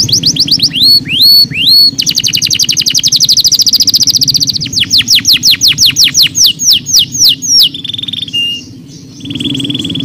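Canary singing in rapid trills of repeated high notes: a very fast rattling trill about two seconds in, then slower notes each sweeping downward, and near the end two short steady whistled notes.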